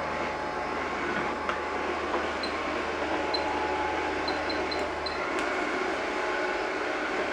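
WLtoys V931 AS350 RC helicopter in flight: steady whir of its electric motors and spinning rotor blades.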